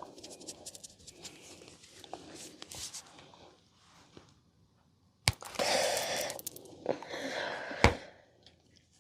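Hands rubbing and patting over hair and skin during a head and upper-body massage. Light rustling and small clicks give way to a short pause, then louder rubbing broken by three sharp clicks, the last and loudest near the end.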